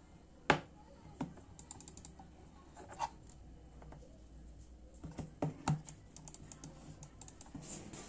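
Sharp plastic clicks and taps from handling a Logitech M100 mouse's USB cable and plug: the plug is pushed into a socket and the mouse is set down. The clicks are irregular, with a loud one about half a second in and a cluster of louder ones around five seconds, and faint ticks in between.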